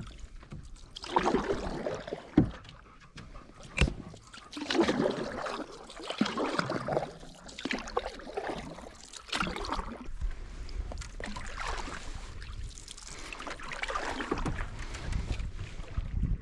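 Canoe paddle strokes in salt water: a swish and splash every second or two, with two sharp knocks early in the stroke sequence.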